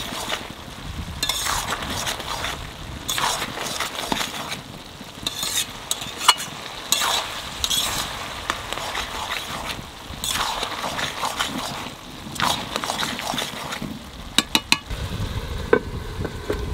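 A metal spatula scraping and stirring cabbage and potato in a karahi, in repeated strokes over a light sizzle. Near the end a few sharp clinks as a clay lid is set on the pan.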